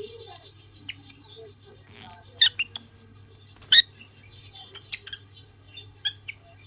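Pair of lutino lovebirds chirping: scattered short, sharp chirps, the two loudest about two and a half and nearly four seconds in, with soft high chatter between, over a steady low hum.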